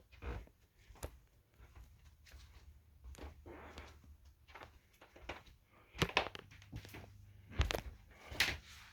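Scattered knocks and clunks, the loudest about six and seven and a half seconds in, over a faint low hum.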